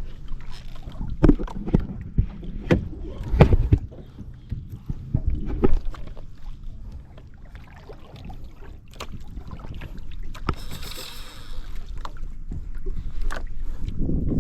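Water and wind sounds on a small fishing boat at sea, with the low rush of wind on the microphone. Several sharp knocks come in the first few seconds and a few more later, and a brief hiss comes about ten seconds in.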